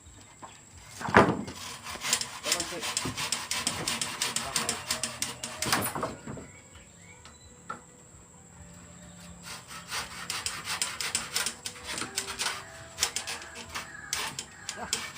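Wood being worked by hand for a wooden boat's floor: quick rasping strokes in two long runs, with a single sharp knock about a second in.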